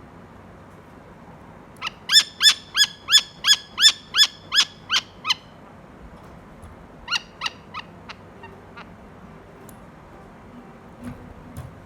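Saker falcon calling: a fast run of about eleven short, repeated calls at about three a second, then a shorter, fainter run of four calls a couple of seconds later.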